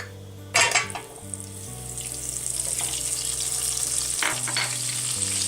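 Butter going into hot olive oil in a pan: a sudden loud sizzle about half a second in, then a steady sizzle that grows louder as the butter melts.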